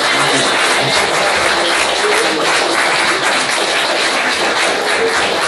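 Audience applauding steadily, with a few voices faintly mixed in.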